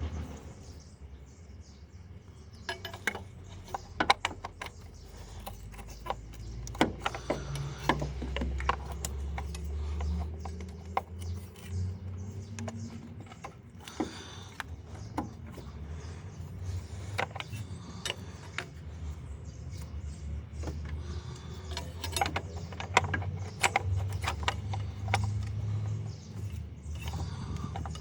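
Irregular metallic clicks and clinks of hand tools working on the engine's belt tensioner, over a low, uneven rumble.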